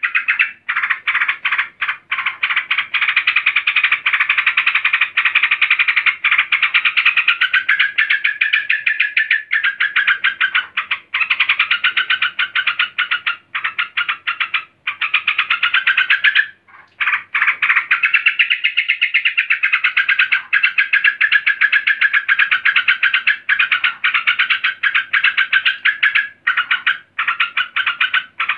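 Female yellow-vented bulbul in agitated calling: a long, loud, fast rattling chatter with a wavering pitch, broken by a few short pauses. This is the 'ngamuk' female call that keepers use to draw a male bulbul into singing.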